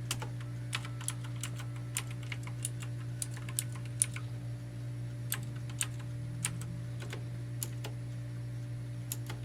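Keys of a mechanical keyboard with Cherry MX-style switches pressed one at a time, each giving a sharp click at an irregular, unhurried pace, as the keys are tested individually.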